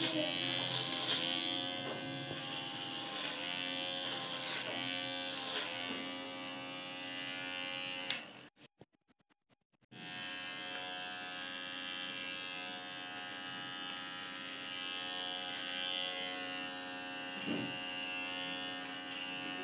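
Rechargeable electric hair clipper buzzing steadily as it cuts hair, its pitch wavering in the first few seconds. The buzz drops out for about a second and a half a little before halfway, then comes back.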